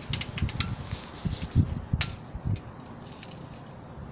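Irregular low thumping rumble on the microphone, with a single sharp click about two seconds in.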